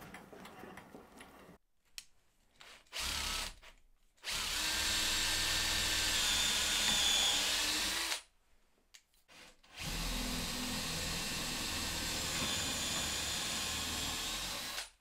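Cordless drill boring through plywood held in a vise. There is a short trigger burst, then two runs of several seconds each with a steady motor whine, split by a brief pause.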